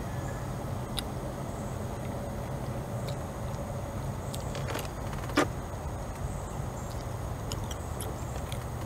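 Steady low hum of a distant motor, with a few sharp clicks, the loudest about five and a half seconds in.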